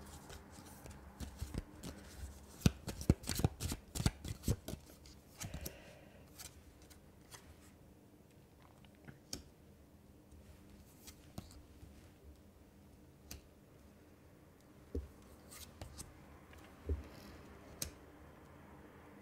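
Tarot cards being shuffled and dealt onto a glass tabletop: a quick run of crisp card clicks and flicks over the first few seconds, then scattered light taps as single cards are laid down.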